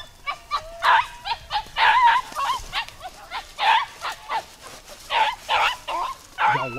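A pack of beagles giving tongue on a rabbit's track: many short barks in a quick, irregular string, some bending in pitch.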